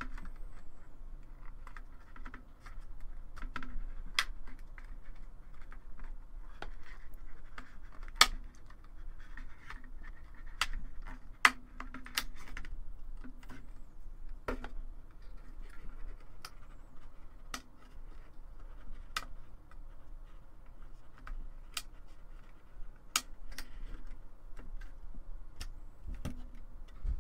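Plastic clasps of the PinePhone keyboard case clicking loose one by one as a plastic opening pick and fingers pry along the seam, with scraping and handling noise between the irregular sharp clicks.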